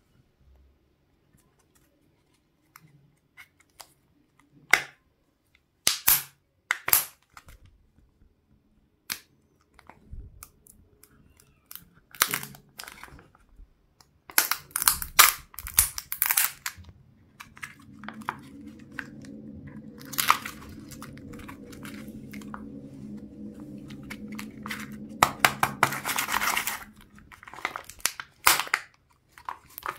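Packaging being torn open and crinkled by hand in short, sharp spells. Partway through, a steady low hum comes in for several seconds, then stops.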